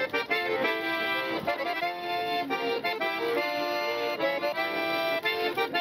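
Two accordions playing a tune together, a button accordion (bayan) and a Vignoni piano accordion, with held chords and notes changing several times a second.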